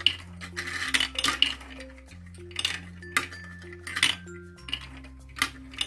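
Marbles rolling and clattering through a plastic building-block marble run and circling a plastic funnel, with irregular sharp clicks and rattles as they hit the track. Background music with a steady bass line plays underneath.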